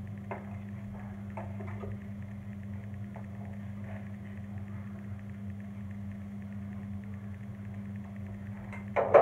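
Wooden ruler and chalk working against a blackboard: a few faint taps and scrapes as a straight line is drawn, over a steady low hum. A sharp knock near the end is the loudest sound.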